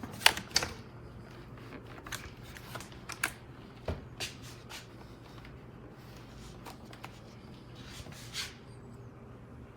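Scattered clicks, taps and short rustles from hands handling the plastic parts of a Shark cordless stick vacuum, its motor not running.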